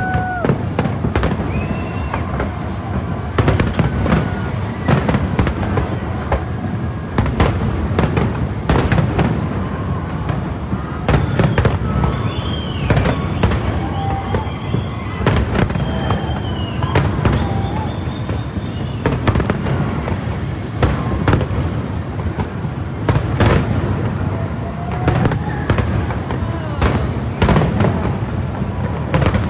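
Aerial fireworks bursting in a rapid, irregular run of bangs and crackles over a steady rumble, with a few whistling tones now and then.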